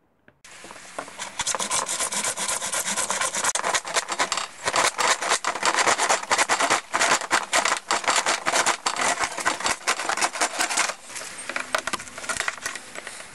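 Hand saw cutting across a plastic half-round gutter in rapid rasping back-and-forth strokes. The sawing stops about eleven seconds in, and fainter rubbing follows.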